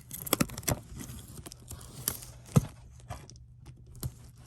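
A sealed model kit box being picked and pried open with a fingernail: scattered sharp clicks, scratches and crinkles of packaging. The loudest snap comes about two and a half seconds in.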